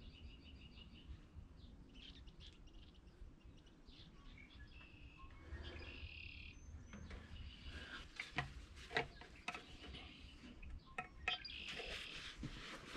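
Faint birds chirping over a low background hum, with a few light clicks and knocks in the second half.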